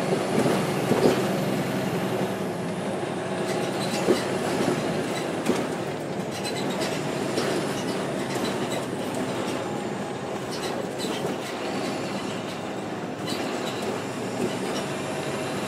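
Ride noise aboard a NABI 416.15 transit bus with a Caterpillar C13 diesel and ZF six-speed automatic: a steady engine and road rumble with body rattles and a few sharp knocks and clatters, mostly in the first six seconds.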